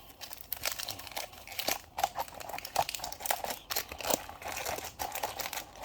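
Foil booster packs of Pokémon cards crinkling and rustling as they are handled and put back into their box: a run of irregular crinkles and light crackles.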